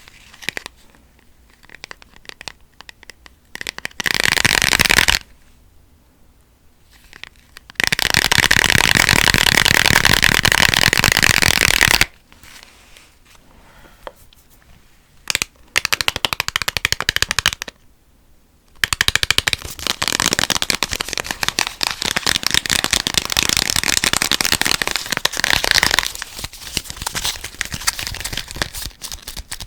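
Fast, dense fingernail tapping and scratching on small hard objects, in bursts of a few seconds each, with quieter, sparser tapping between them; the longest burst comes near the end.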